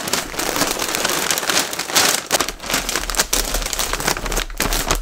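Kraft paper mailer bag crinkling and rustling with dense, irregular crackles as it is handled and folded closed over a packed order.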